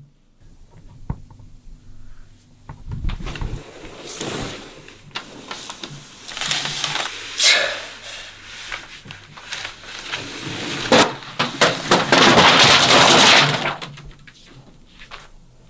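Plastic water bottles crackling, crinkling and clattering as they are grabbed and knocked about on a table, a dense run of sharp crackles that grows loudest for a couple of seconds near the end, then stops.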